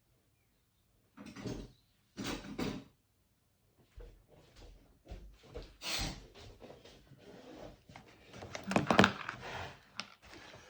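Handling noises: two short scuffs, then a run of irregular knocks, scrapes and rustles as objects are moved about, loudest near the end.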